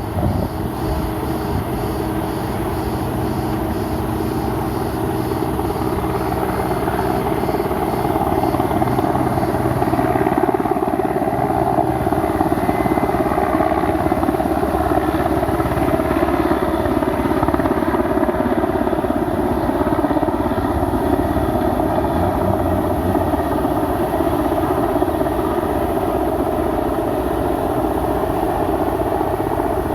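Steady engine noise with a low hum, a little louder from about eight seconds in.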